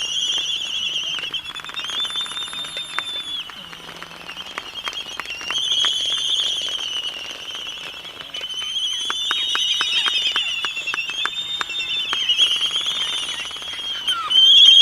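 Albatrosses calling in a group: many overlapping high, wavering calls, with bursts of sharp clicks mixed in.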